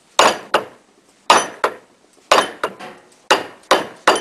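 Rubber mallet striking down on the rotor shaft of a vane air motor clamped in a vise, knocking the rotor assembly out of the housing. It is a steady series of sharp strikes, about ten in all, landing in pairs roughly once a second, each with a short metallic ring.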